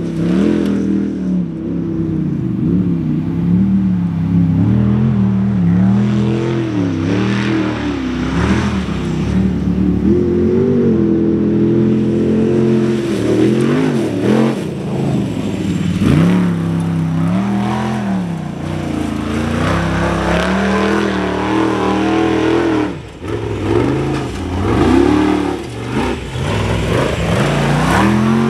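Formula Offroad buggy's engine revving hard under full wheelspin in loose sand, its pitch surging up and falling back again and again. Loose sand sprays from the tyres, and the engine drops off briefly late on before revving up again.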